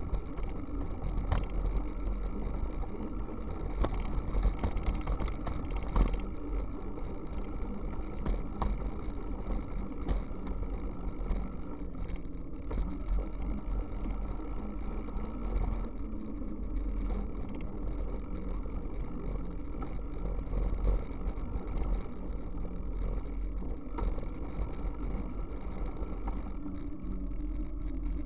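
Wind buffeting the microphone of a camera mounted on a moving bicycle, over steady road and tyre noise from the asphalt, with a few short knocks as the bike rides over bumps.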